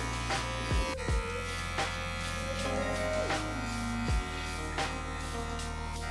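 Cordless electric pet clippers running with a steady buzz as they trim a West Highland white terrier's fur, over background music with plucked strings.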